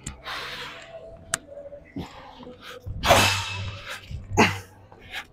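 A man's hard, forceful exhales in short bursts during weighted squat jumps, with dull thuds from the landings; the loudest burst and thud come about three seconds in.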